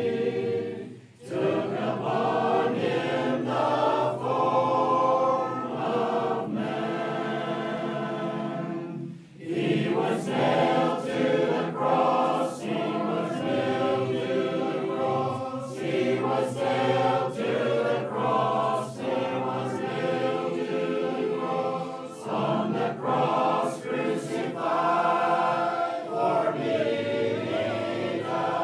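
Background music of a choir singing, phrase after phrase, with short breaks about a second in and about nine seconds in.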